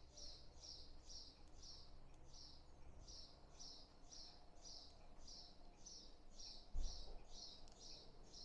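A bird chirping over and over, faint and very regular, about two to three high chirps a second. A low thump comes about seven seconds in.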